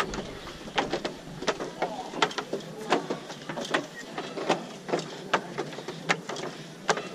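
Steps and knocks of someone climbing a steep staircase: a run of sharp, irregular clicks, about two a second.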